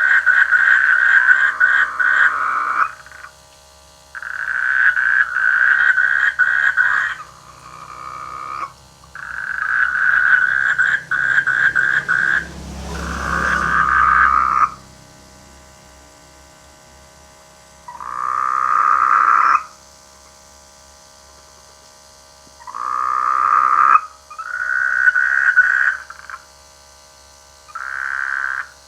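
Frogs giving mating calls in a rainy-season chorus: about eight bouts of rapid, pulsed croaking, each lasting a second or three, with short pauses between. About halfway through, a brief noise with a low rumble sits under one bout.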